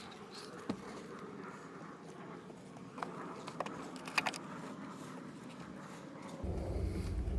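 A few faint clicks and knocks, then a low rumble that comes up about six and a half seconds in.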